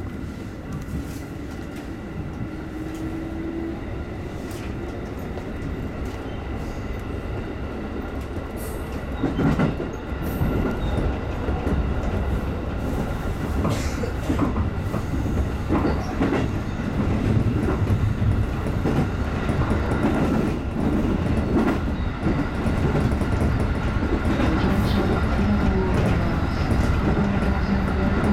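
JR 211-series electric multiple unit pulling away and gathering speed, heard from behind the driver's cab. Its running noise builds steadily, and from about nine seconds in the wheels clack over rail joints and points.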